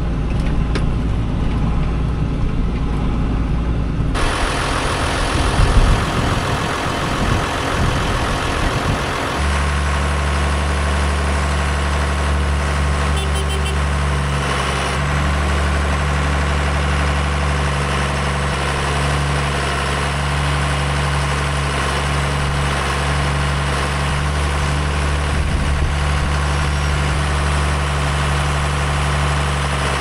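John Deere loader tractor's diesel engine running steadily at a constant speed, with an uneven, rougher stretch a few seconds in before it settles into a steady hum.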